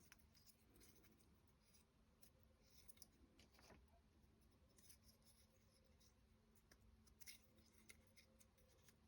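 Near silence with faint, scattered light clicks and taps as small wooden clock-kit parts are handled and fitted together.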